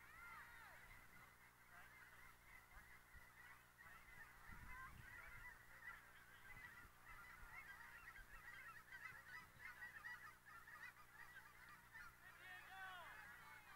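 Faint, continuous chorus of many short overlapping bird calls from a flock, the calls crowding together a little more near the end.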